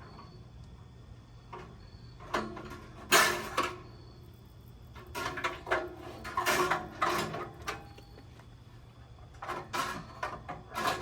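Metal grill parts being handled and fitted into the grill body: several bouts of clanks and rattles, with a sharp knock about three seconds in and a longer run of clattering in the middle.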